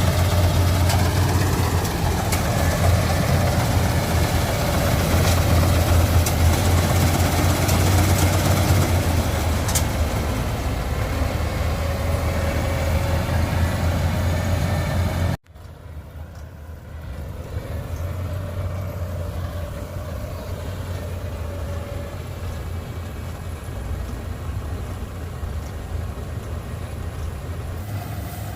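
Rice harvester's engine running steadily with a strong low hum. About halfway through the sound cuts out suddenly and comes back quieter, still running steadily.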